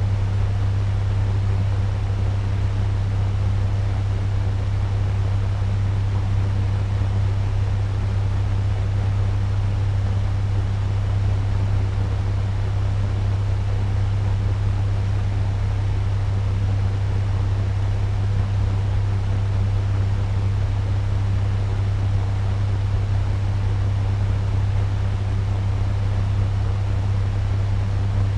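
Turbo fan running steadily at medium speed: an even rush of air over a strong, constant low hum.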